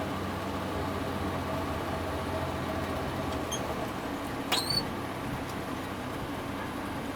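A vehicle engine running steadily, with one brief high, rising squeak about four and a half seconds in.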